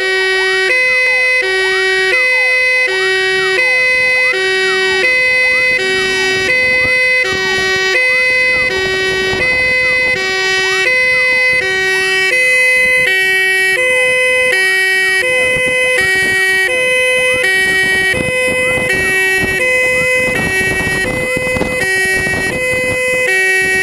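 Belma two-tone Milicja siren sounding hi-lo, its two tones switching back and forth about every three-quarters of a second. Behind it, a Tesla AZD 500 siren wails up and down. From about eight seconds in, vehicle engine and road noise grow under them.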